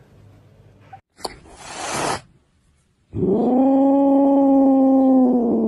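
Domestic cat's long, steady yowl, held at one pitch for about two and a half seconds in the second half. Before it, a short click and a brief rising hiss.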